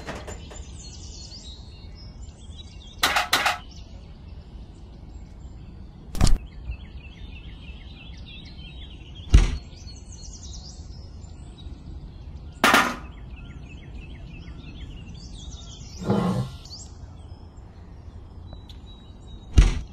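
Six short clacks and thumps of small plastic toy pieces being handled and set down, about every three seconds, over a steady outdoor background with birds chirping.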